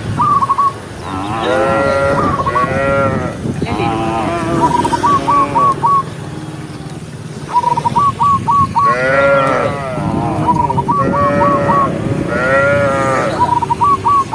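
Cattle mooing repeatedly, about six long calls that each rise and fall in pitch. Between the moos come quick runs of three to five short high chirps.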